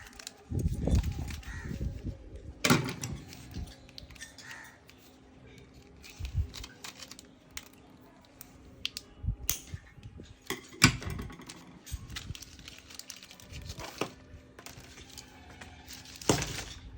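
Handling of a car fog lamp wiring harness kit: irregular clicks, knocks and rustles of plastic connectors, wires and packaging being picked up and moved, over a faint steady hum.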